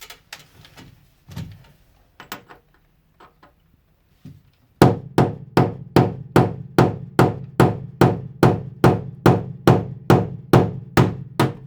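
Hammer striking an old screw used as a punch, driving a ground-down school-bus seat bolt and floor plate through the floor. A few light taps come first. About five seconds in, a fast steady run of hard, ringing blows begins, about two and a half a second.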